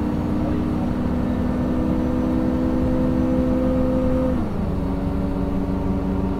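City bus engine and drivetrain running steadily while the bus drives, heard from inside the cabin; its steady hum drops in pitch about four seconds in.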